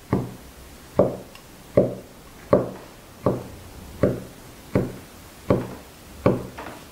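Chinese cleaver chopping down through a folded sheet of dough onto a wooden board, cutting it into strips: nine even knocks about three-quarters of a second apart.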